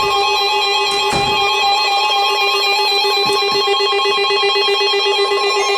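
Emergency Alert System attention signal: a loud, steady electronic alert tone of several pitches sounding at once, held without a break, with a faint click about a second in.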